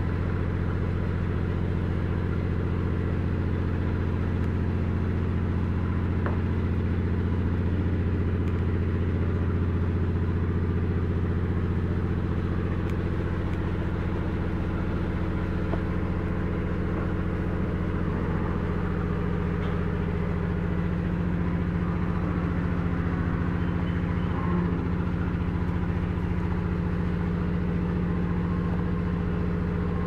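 Steady low machine hum, even and unchanging throughout.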